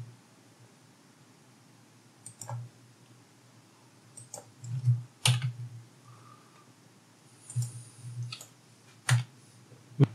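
Scattered computer keyboard keystrokes and mouse clicks as a spreadsheet formula is typed in: a handful of separate sharp clicks a second or so apart, with a few in quick succession around the middle.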